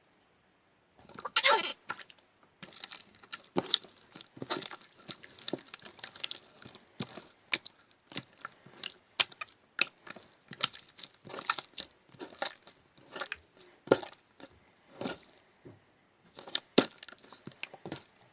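Homemade water slime being squished and pressed by hand: irregular sticky clicks and crackles, several a second.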